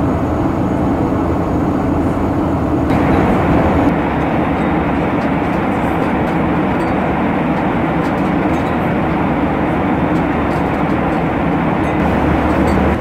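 Steady roar inside a Boeing 737-900ER cabin in cruise: jet engine and airflow noise. About three seconds in it abruptly turns brighter and a little louder.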